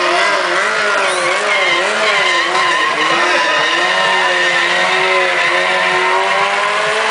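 Sport motorcycle engine held at high revs, its pitch wavering rapidly up and down, then running steadier through the second half, with tires squealing on the tarmac.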